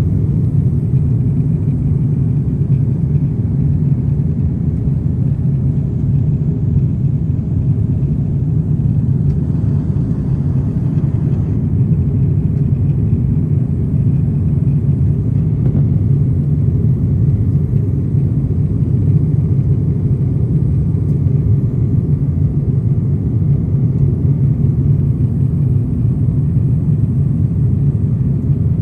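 Steady low rumble of a jet airliner's cabin noise, engines and airflow, holding even throughout.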